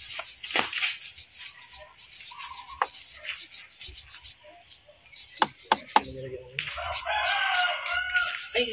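Small steel wire brush scrubbing the threaded head of an oxygen sensor in short, repeated strokes, cleaning it before fitting. A rooster crows near the end.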